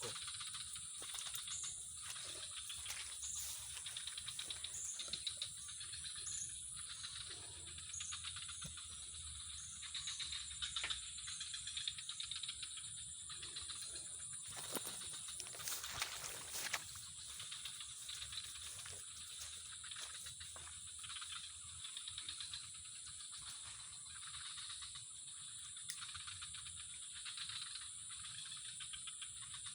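Outdoor ambience: a steady high-pitched insect drone with many scattered light clicks and rustles, busiest about halfway through.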